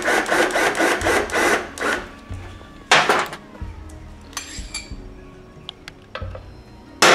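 Rubbing and scraping of metal parts as a motorcycle rear wheel is worked into its swingarm: a run of quick rasping strokes, then a loud scrape about three seconds in, followed by scattered light clicks and knocks.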